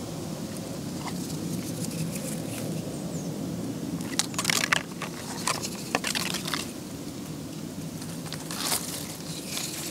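Soaked deer rawhide strip being twisted and stretched by hand into a bowstring, giving clusters of short crackling, squishing rubs from about four seconds in.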